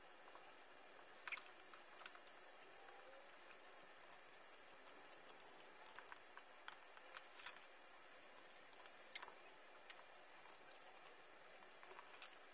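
Faint scattered clicks and light taps of a hot glue gun being worked along the edges of an acrylic tray to seal them. The two sharpest clicks come about a second and two seconds in.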